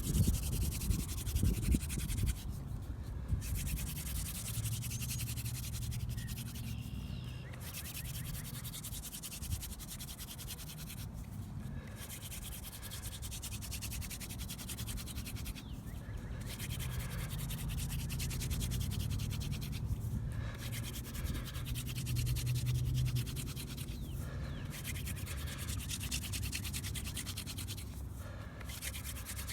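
Hand drill friction fire: a wooden spindle spun back and forth between the palms, rasping as it grinds into the hearth board. The rasping is broken by a short pause about every four to five seconds, as the hands go back to the top of the spindle.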